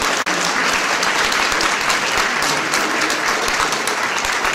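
An audience applauding steadily, dense clapping from many hands.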